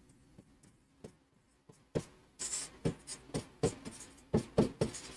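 Pen stylus writing on an interactive whiteboard screen, making short taps and scratchy strokes as words are written by hand. There are only a few faint ticks at first, then about two seconds in a quick, busy run of strokes and taps begins.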